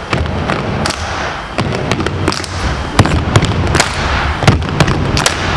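A group of small children clapping hands and stamping on a wooden floor: many sharp claps out of step, over a steady low thudding of feet.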